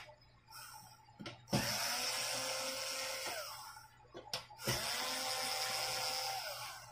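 Small cordless electric screwdriver running twice for about two seconds each, backing out the screws of an LED TV's timing control board. Each run starts just after a click and its whine falls in pitch as the motor stops.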